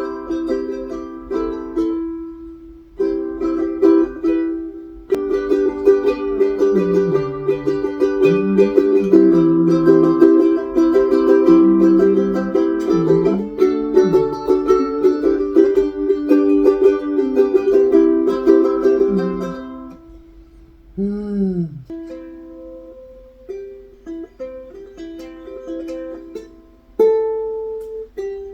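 Ukulele played in a small room: steady strummed chords for about twenty seconds, then lighter, sparser picked notes.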